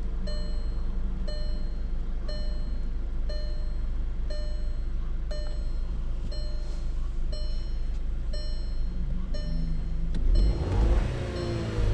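2010 VW Tiguan 2.0 TSI engine idling with a steady low rumble while misfiring, over a repeating electronic warning chime from the car, about three beeps every two seconds. The engine gets louder near the end.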